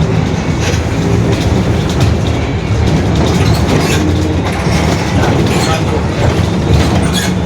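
Rear differential of a Mercedes-Benz OF-1721 city bus droning very loudly while the bus drives: a steady low drone with rattling over it.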